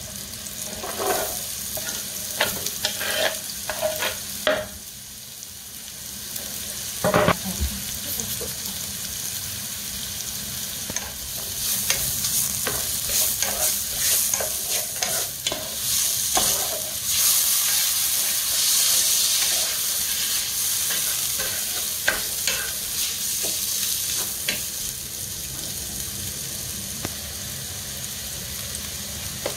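Onions, curry leaves and dried red chillies sizzling in hot oil in a nonstick pan, stirred with a wooden spatula that scrapes and taps against the pan. A louder thump comes about seven seconds in, and the sizzle grows louder from about twelve seconds in.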